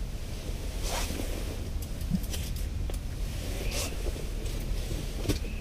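Soft rustling and a few light clicks of handling as a hooked fish is brought up through the ice hole, over a steady low rumble.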